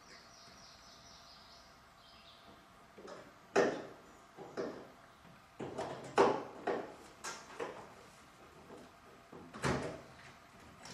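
Irregular knocks and clunks of hand tools and parts being handled against metal in a car's engine bay, the loudest about three and a half and six seconds in, with a faint fast ticking at first.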